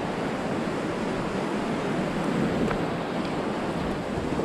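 Small surf washing onto a sandy beach: a steady rushing wash of waves, with some wind on the microphone.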